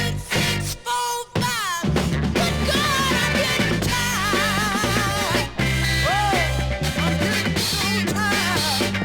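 Soul record playing: a singer over sparse stop-start backing, then the full band with bass and drums comes back in about two seconds in, the vocal carrying on over it.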